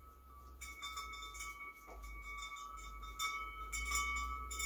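Wind chimes ringing on and off in gusty wind, the same few notes swelling again and again over a low rumble.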